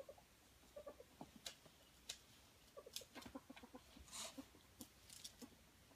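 Ferrets dooking: short runs of rapid, soft clucking pulses, heard a few times, with scattered sharp clicks in between.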